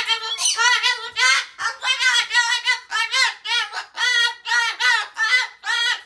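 Cockatoo screaming over and over in short, pitch-bending squawks, about two or three a second, a bedtime tantrum.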